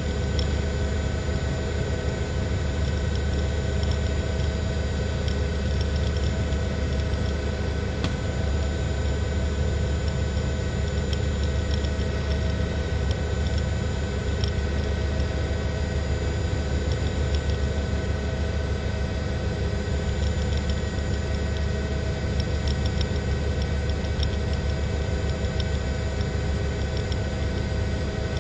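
News helicopter running steadily: rotor and engine noise, with several steady whining tones above it.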